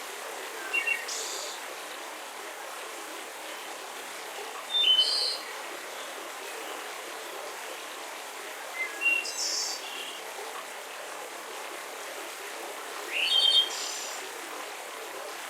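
Songbirds singing short, high chirping phrases, four of them roughly four seconds apart, over a steady background hiss of forest ambience.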